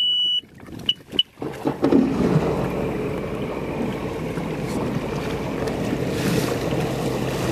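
A jet ski's electronic beeps, one longer and then two short, followed by its engine starting about two seconds in, the pitch swinging briefly before it settles into a steady idle.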